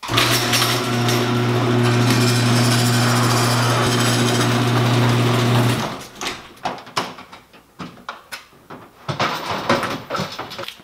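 Electric overhead garage door opener running while the sectional door rolls up: a steady motor hum with rattling that cuts off about six seconds in. Scattered knocks and clatter follow.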